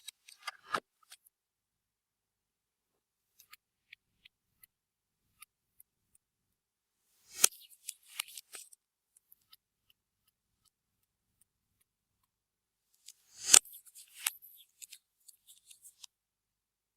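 Clear slime being squeezed and pressed by hand, giving sharp sticky pops and small crackles in three short clusters: one right at the start, one about halfway through and a longer one near the end, with quiet gaps between.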